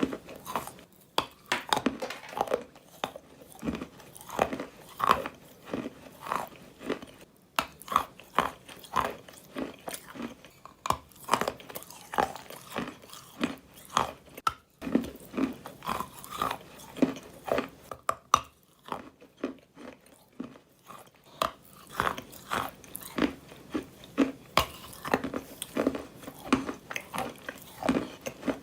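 Wet, grainy crunching: a rapid, irregular series of short crunches, about two a second, briefly thinning out a little past the middle.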